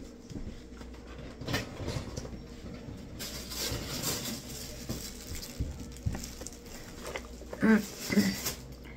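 Rustling and scraping of a cardboard product box and its packaging being handled, with a few light knocks. Near the end there is a brief murmured voice sound, louder than the rustling.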